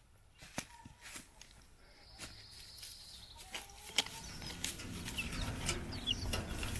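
Chickens moving about in a pen: scattered clicks and rustling with a few short high chirps, growing louder toward the end.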